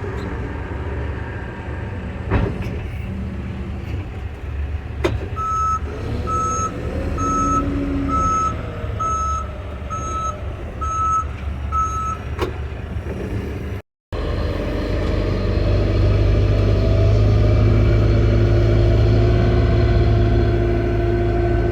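John Deere backhoe's diesel engine running, with its backup alarm beeping eight times, about once a second, as the machine reverses, sharp knocks just before and after. After a brief gap the engine runs louder and steadier.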